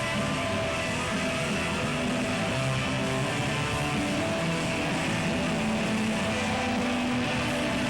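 Rock band playing live, electric guitar to the fore with held chords.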